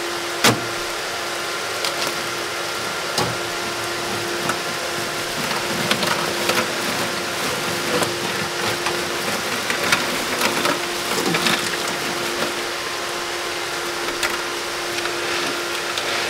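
An electric cooling fan running steadily with a constant hum, while ice cubes clatter and rattle as a bag of ice is emptied into a water-filled aluminium ice box. A sharp knock about half a second in is the loudest single sound.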